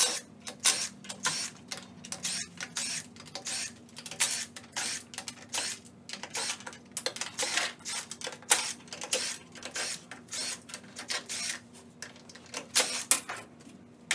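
Cordless power driver running in many short, irregular bursts as it backs out the oil pan bolts on a CVT transmission case, over a steady low hum.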